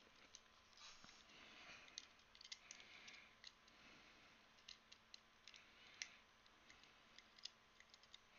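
Faint, irregular small clicks and taps of a small keyboard kit, a single-key board with its keycap, being handled and fiddled with in the fingers.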